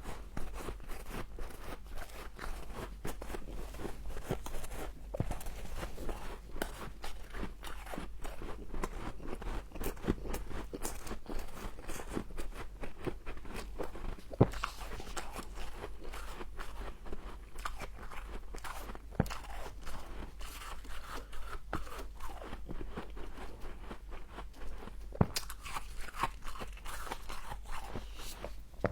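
Close-miked crunching of humidifier frost being bitten and chewed, with dense crackling and a few sharper snaps.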